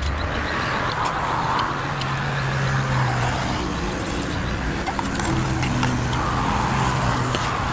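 Vehicle noise, an engine hum with road noise that swells and fades twice, with a few light clinks of plates near the end.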